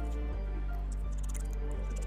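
Background music with a low sustained bass line stepping from note to note every half second or so, with a few faint clicks over it.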